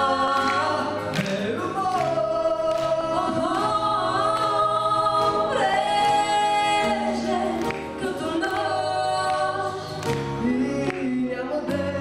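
A man and a woman singing a duet into handheld microphones over instrumental accompaniment, with several long held notes.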